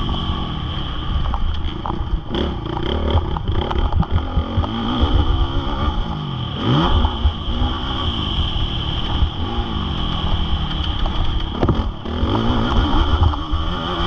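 Honda CRF450R single-cylinder four-stroke motocross bike engine being ridden on the throttle, its pitch rising and falling again and again as the rider accelerates and backs off, with a heavy low rumble throughout.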